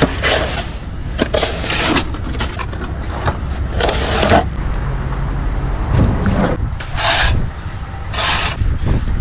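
Metal hand tools scraping through hot asphalt in about five separate strokes, over a low steady engine rumble.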